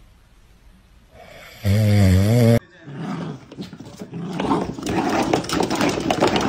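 One loud, rippling snore about two seconds in. Then a Jack Russell-type terrier growls in rough, rapid bursts as it shakes a rubber chicken toy.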